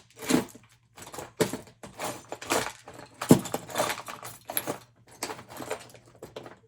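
Small metal tools and parts clattering and jangling in irregular short knocks as someone rummages among them for a grinding bit.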